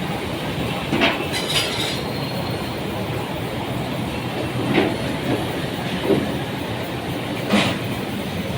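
Steady rushing noise of cooking on a stove, with about five sharp metal knocks of a utensil against a pot; one near the start rings on briefly.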